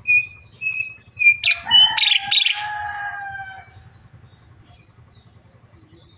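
Javan myna calling: three short whistled notes, then a loud, harsh burst of calls ending in a drawn-out, slightly falling note that fades out after about two seconds.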